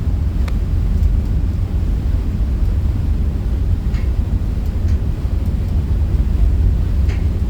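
Steady low rumble on board a Mersey ferry under way.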